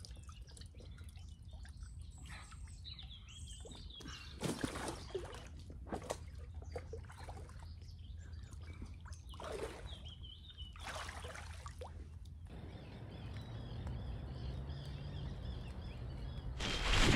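Lake water sloshing and splashing in several bursts as a wading angler handles a big common carp in a floating sling in the shallows, with birds singing. About twelve seconds in, the sound cuts to a quieter, steady low hum with faint chirps.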